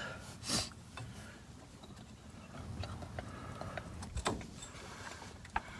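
Faint scattered clicks and knocks of hands and tools working an alternator belt off in a machine's engine bay.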